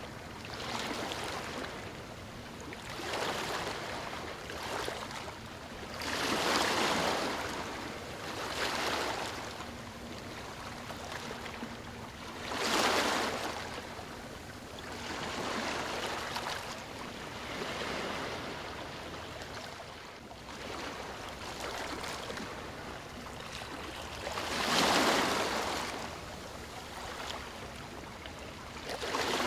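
Small waves breaking and washing up a sandy beach, a steady hiss of surf that swells every few seconds, with three stronger breakers.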